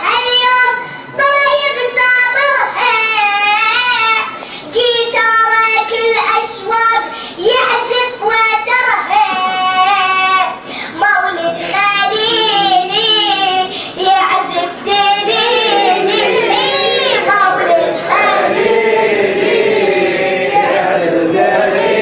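A high voice singing an Arabic religious mawlid poem in a chanted, ornamented melody, with wavering pitch bends and short breaths between phrases.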